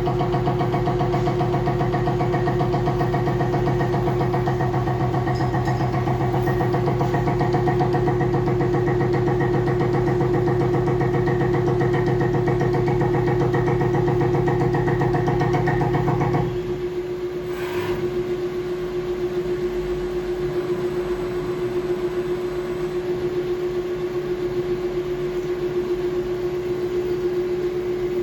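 Four-axis CNC mill machining splines on a pinion: a steady spindle whine under heavier cutting noise. The cutting noise drops away sharply a bit over halfway through, followed by a brief click, and the whine carries on.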